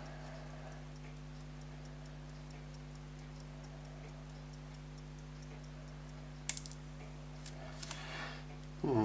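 Fusee pocket watch ticking faintly and evenly, over a steady low hum, with a sharp click about six and a half seconds in.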